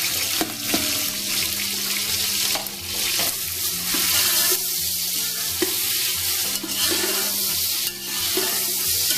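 Sliced onions sizzling in hot oil and ghee in an aluminium pot, stirred with a spatula that scrapes and knocks against the pot several times. The onions have just gone in and are frying toward light golden.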